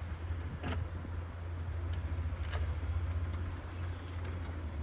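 Antonov An-12BK's four Ivchenko AI-20 turboprop engines droning low and steady as the aircraft taxis, with a few faint clicks.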